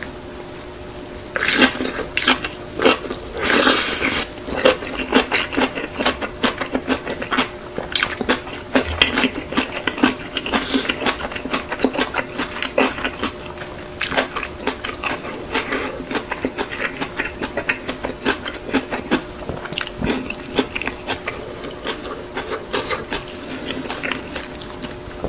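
Close-miked eating of Buldak spicy stir-fried noodles rolled in kimchi: wet chewing and mouth smacks repeating throughout, with the loudest bites or slurps about two and four seconds in. A faint steady hum runs underneath.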